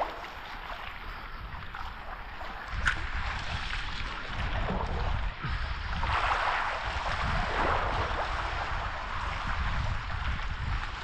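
Wind buffeting the microphone over water washing and lapping around exposed reef, with a sharp click about three seconds in.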